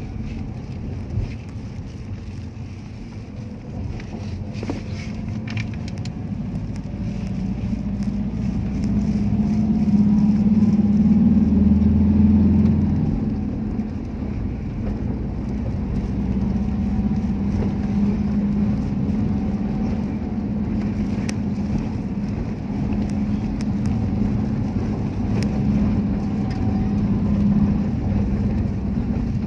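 Engine and tyre noise of a road vehicle driving along, heard from on board: a steady low hum that swells for a few seconds about ten seconds in, then settles.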